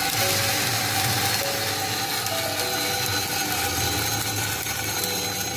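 Freshly roasted coffee beans tumbling out of a small drum roaster into its perforated steel cooling tray at the end of the roast: a dense, steady rattle and hiss of beans over the hum of the machine's motors.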